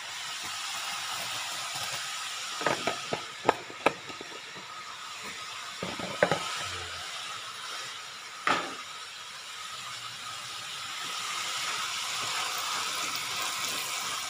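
Wonton skins deep-frying in hot oil in a wok: a steady sizzle, with a few sharp taps, a cluster about three to four seconds in and single ones about six and eight and a half seconds in.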